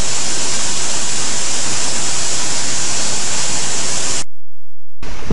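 Storm noise: a steady, loud hiss of wind and rain that cuts off abruptly about four seconds in. After a short silence, gusts of wind buffet the microphone with a low rumble near the end.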